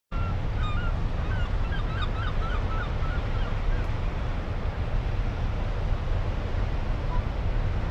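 Beach ambience: a steady rush of wind and surf, heavy in the low end, with a small bird chirping for the first few seconds.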